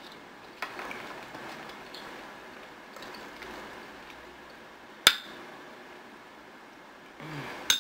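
Faint small handling sounds, then a single sharp clink of a metal spoon against a glass bowl about five seconds in, and another clink right at the end.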